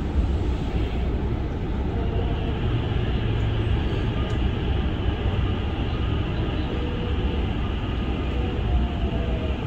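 Hankyu 9000-series electric commuter train running, heard from just behind the cab as it pulls out of a station and picks up speed: a steady low rumble of wheels and motors, with faint traction-motor tones, one gliding down in pitch near the end.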